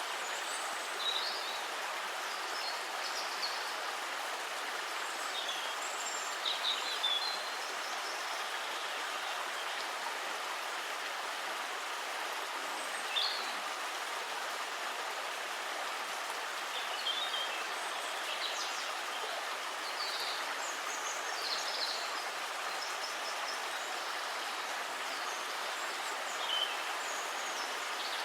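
Steady rush of flowing stream water, with short high bird chirps breaking in every few seconds.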